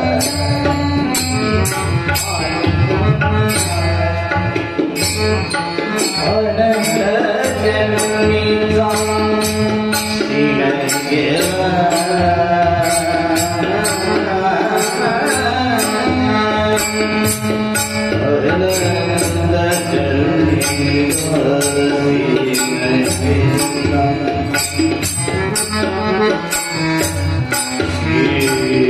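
Marathi devotional bhajan music: a wavering melodic line over a hand-drum rhythm, with steady, regular high metallic strokes keeping the beat.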